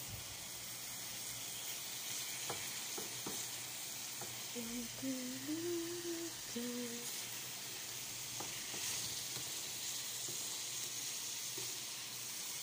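Chicken sizzling and frying in a pan of thick sweet-soy chilli sauce, stirred with a wooden spatula that knocks and scrapes against the pan a few times. A person hums a short tune for a couple of seconds near the middle.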